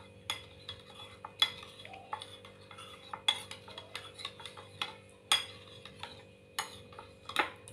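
Metal spoon stirring a liquid soy-and-oyster-sauce mixture in a small ceramic bowl, clinking against the bowl in quick irregular clicks, a few of them sharper and louder.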